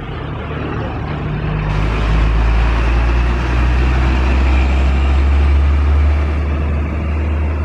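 Heavy cement-hauling truck driving past close by: a deep engine rumble with tyre and road noise that swells over the first two seconds and stays loud, easing slightly near the end.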